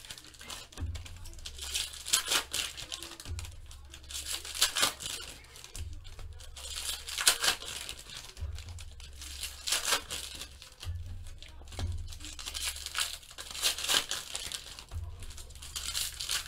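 Foil trading-card pack wrappers being torn open and crinkled by hand, in repeated short crackly bursts every second or two. Quiet background music with a low bass pulse underneath.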